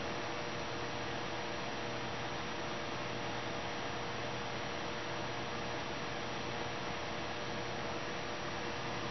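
Steady hiss with a low electrical hum running under it, even throughout with no distinct event.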